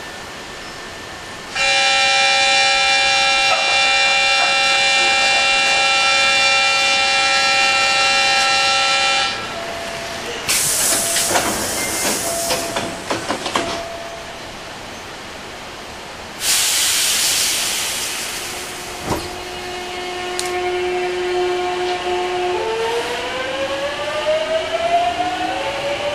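Inside a Hankyu 8300 series electric train pulling out: a steady ringing signal of several fixed tones sounds for about eight seconds. Then come loud bursts of compressed-air hiss from the doors and brakes. Last, the traction motors' whine starts as a steady tone and then rises in pitch as the train accelerates.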